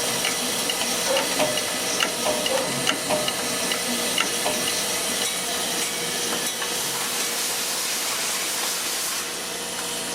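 Screw thread-rolling machine and its vibratory bowl feeder running in jog mode on a first trial: a steady machine hiss under a faint hum, with light irregular clicks of screws in the first half. The hiss grows brighter for a couple of seconds near the end.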